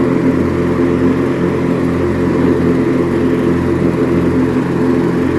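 White LT 1650 riding mower's Briggs & Stratton opposed-twin engine running steadily under load, with the mower deck engaged and cutting grass.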